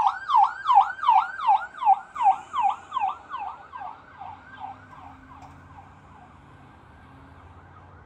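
Fire truck siren on a fast yelp, about three rising-and-falling sweeps a second, fading away over the first four to five seconds as the truck drives off, leaving only a faint street hum.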